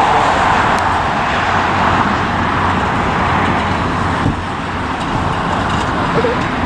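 Steady roar of engine noise, easing a little about four seconds in.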